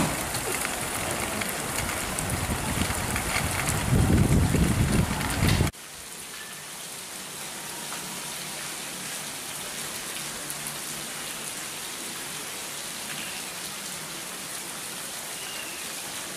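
Heavy monsoon rain pouring, with a low rumble rising for a couple of seconds. About six seconds in, it cuts abruptly to a quieter, steady hiss of rain splashing on a wet surface.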